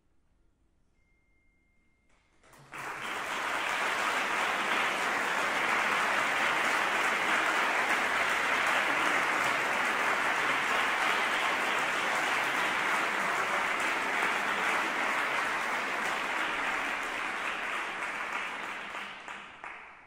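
Audience applauding after a choral piece, starting suddenly about two and a half seconds in, holding steady and dying away near the end.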